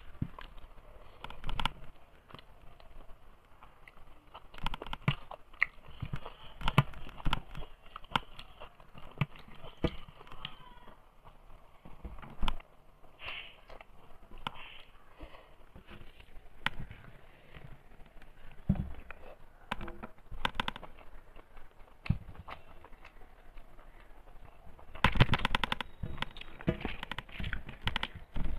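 Close-up eating sounds by hand: chewing and lip smacking on mouthfuls of rice, and fingers mixing rice against a steel plate. It is an irregular string of sharp clicks and crackles, with a dense run of them near the end.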